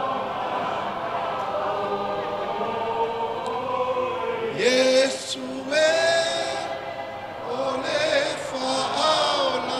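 A group of voices singing together, unaccompanied, like a choir or congregation. A louder, closer voice with vibrato rises above the group about halfway through and again near the end.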